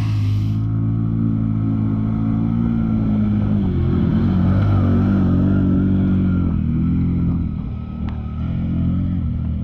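ATV engines running: one runs steadily close by while another quad accelerates past through a muddy puddle, its engine note rising and falling and loudest about four to six seconds in.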